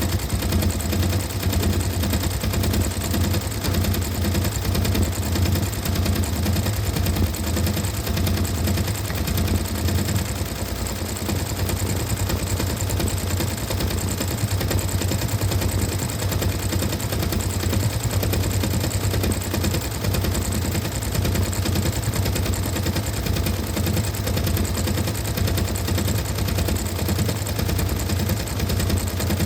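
Sewing machine stitching continuously at a fast, even rate, its needle strokes running over a steady motor hum.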